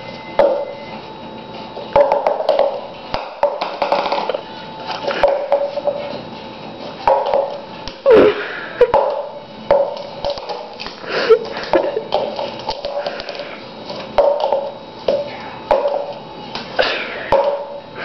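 A small toy tapping and bouncing on a countertop as it is tossed back and forth with a blue-fronted Amazon parrot, in repeated short bouts with sharp clicks. Short voice-like calls come in among the taps.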